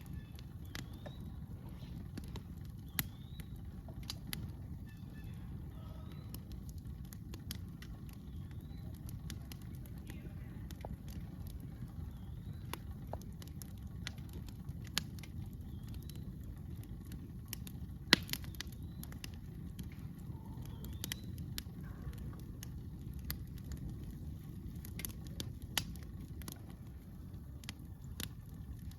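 Campfire crackling: scattered sharp pops and snaps over a steady low rumble, with one louder pop about two-thirds of the way through. Faint short rising chirps repeat high above it about every two seconds.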